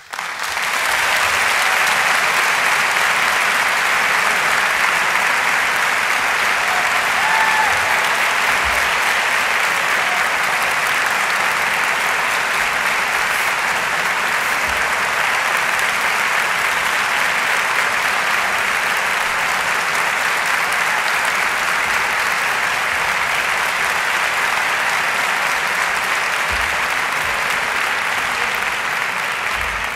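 Large audience applauding: sustained, even clapping that starts suddenly and begins to taper off near the end.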